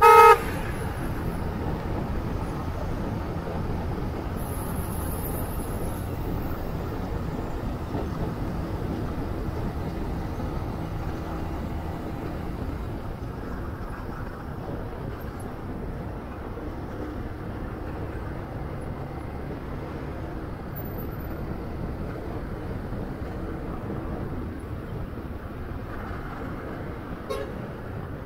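A short, loud vehicle horn toot right at the start. After it comes the steady running noise of a motorcycle being ridden in traffic: engine and wind noise.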